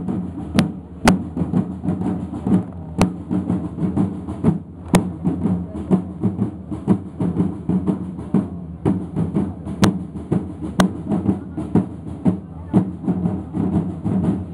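A group of side drums beating a steady marching rhythm, with a few sharp cracks standing out, over the low murmur of a crowd.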